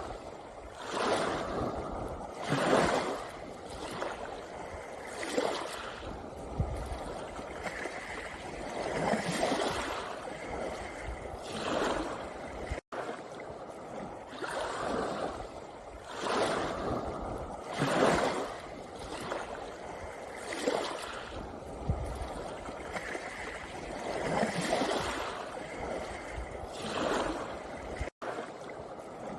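Small sea waves breaking and washing over a pebble beach, the swash coming in surges every one to three seconds. The sound cuts out for an instant twice.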